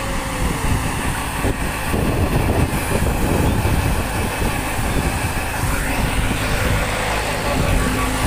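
The diesel engine of a VST Shakti 27 hp mini tractor runs steadily while it drives the PTO fan of a Mitra Airotec Turbo 600 air-blast orchard sprayer, which blows spray mist out as it works.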